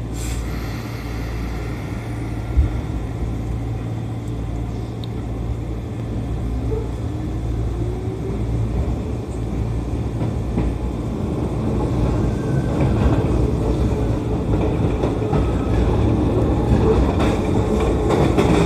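Electric commuter train running on the rails, heard from just behind the driver's cab: a steady rumble of wheels and running gear that grows gradually louder, with a single sharp knock about two and a half seconds in.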